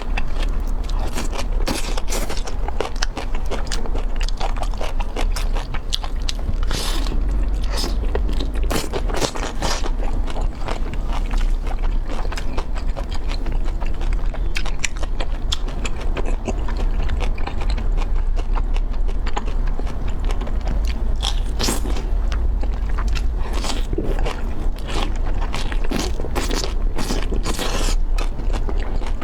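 Close-miked chewing and biting of crunchy food: a dense, continuous crackle of crunches, over a steady low hum.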